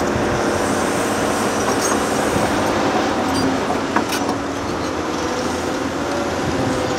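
Heavy diesel earthmoving machines running at work, a Caterpillar 390D excavator and 773D dump trucks: a steady, dense engine noise with held tones that shift slightly, and one sharp clank about four seconds in.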